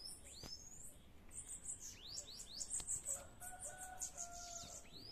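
Bananaquits (sibite) singing: bursts of rapid, high, thin notes that each slide downward, typical of a caged male and a rival wild male answering each other in a territorial dispute.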